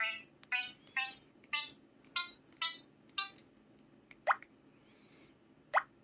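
PT-L2200's built-in electronic sound effects: a run of about seven short pitched beep notes, one every half second, then two quick rising chirps near the end.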